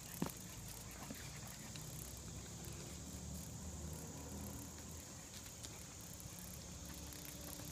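A large dog's paws scuffing and padding on brick pavers, with faint scattered ticks and one sharp tap about a quarter second in, over a steady high hiss and a low rumble.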